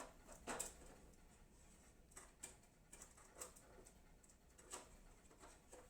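Near silence broken by faint, irregular clicks and taps from handling cables and computer parts.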